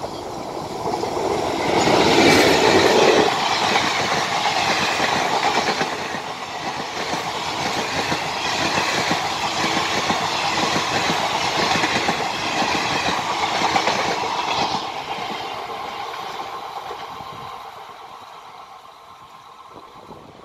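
ALCO diesel locomotive hauling a passenger express passes at speed. It is loudest as the locomotive goes by about two seconds in, followed by a long, rapid clatter of the coaches' wheels on the rails that fades away after about fifteen seconds.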